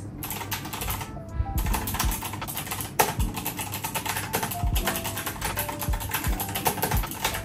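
Typewriter-style computer keyboard with round retro keycaps being typed on fast: a dense, really loud run of clacking keystrokes with a typewriter-like sound, briefly thinning just over a second in.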